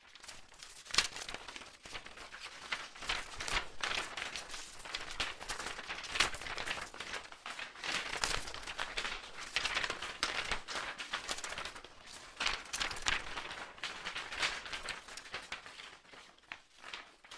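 Packaging being handled and unwrapped: irregular crinkling and rustling with many small crackles, dying away near the end.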